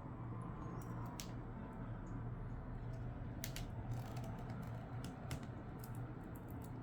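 Faint, scattered clicks and small creaks of a pry tool working under a tablet's glued LCD screen to lift it, over a steady low hum.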